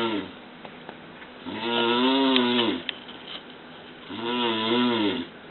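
A man snoring: two long, pitched snores, each rising and then falling in pitch, with the tail of another at the very start, coming about every two and a half seconds with his breathing.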